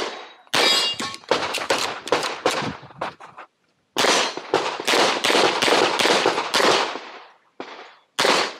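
9mm BUL Armoury 1911 pistol fired in rapid strings of shots, with a short break about three and a half seconds in, then a few more spaced shots near the end.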